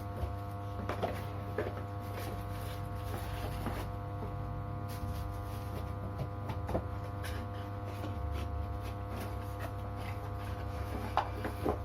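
Small handling noises, scattered light clicks and taps with a couple of louder knocks near the end, over a steady electrical hum: packaging and gear being moved about on a table.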